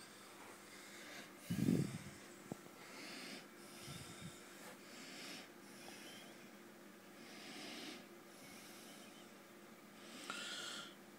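Soft, slow breathing close to the microphone, a hissy in-and-out swell about every two seconds, with a dull bump about a second and a half in.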